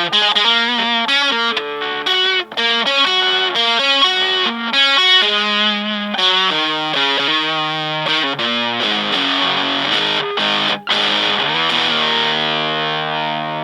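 Fender Stratocaster played through a germanium Fuzz Face–style fuzz pedal into a Fender Blues Junior amp: a quick string of fuzzed notes and short phrases, then a chord left ringing near the end.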